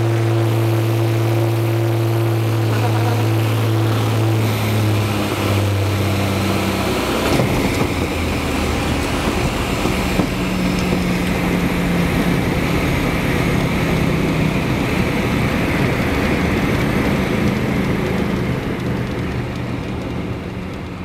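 Glasair experimental aircraft's piston engine and propeller heard from inside the cockpit, running steadily while lining up, then opening up to takeoff power about seven seconds in, its note rising and a loud rush of propeller and air noise taking over for the takeoff roll. The sound fades out near the end.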